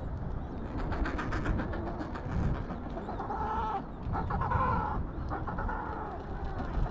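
Adélie penguins calling in the colony: rapidly pulsed braying calls, the loudest two coming a little past the middle, over a steady low rumble of wind.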